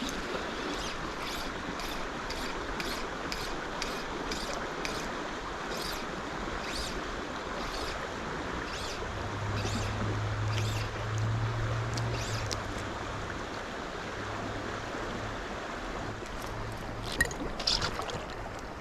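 River water flowing steadily over a riffle, with a series of short scratchy rasps, about one or two a second, through the first half, and a low hum for a few seconds in the middle.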